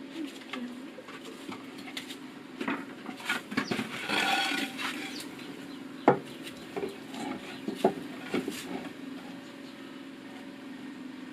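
Scattered knocks and clatter, like wood being handled. A harsher noise lasts about a second around four seconds in, and the sharpest knock comes about six seconds in, over a low steady hum.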